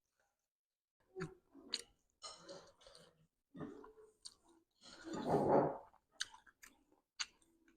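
A person chewing food close to the microphone: short mouth clicks and crackles after about a second of quiet, with one louder, noisier stretch of about a second near the middle.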